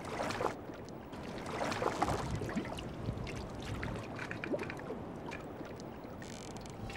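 Water lapping and splashing against a fishing boat's hull, with scattered small knocks.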